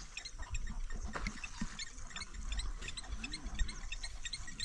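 A plover calls over and over in alarm, with rapid, short, high-pitched notes several times a second and other calls overlapping; the owner takes it for a plover protecting its nest and eggs. A low rumble runs underneath.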